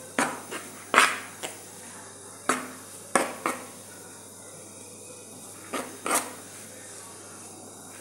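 Sharp knocks and clinks against a dish while acorn couscous grains are worked by hand, about nine in irregular clusters, the loudest about a second in.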